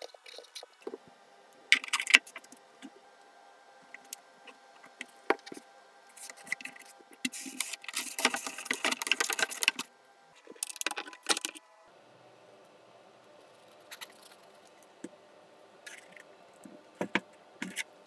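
Handling noise of hard 3D-printed plastic airframe parts being fitted together: scattered clicks and taps, a sharp knock about two seconds in, and a few seconds of louder rubbing and scraping around the middle.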